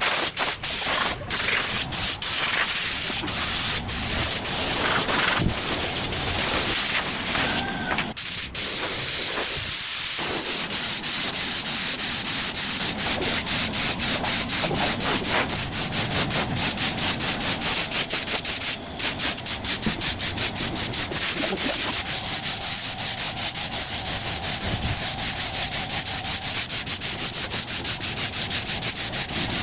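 Continuous rubbing and scraping, like abrasive work on metal, turning into fast, regular strokes about halfway through.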